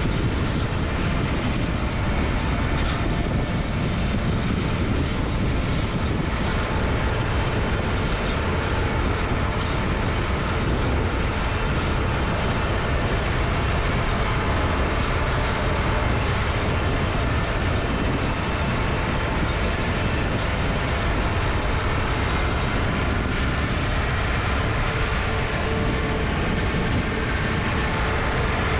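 Heavy farm machinery running steadily: a constant engine drone with dense mechanical noise and a strong low rumble.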